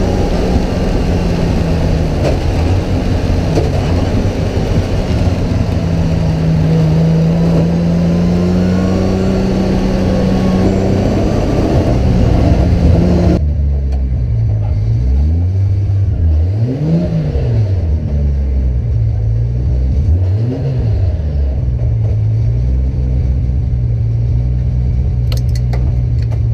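Toyota GT86 drift car's engine heard from inside the cabin: running hard at high revs with heavy road and tyre noise, then about halfway the noise drops off abruptly and the engine revs rise and fall a few times before settling to a steady, lower running note as the car comes off the track into the pits.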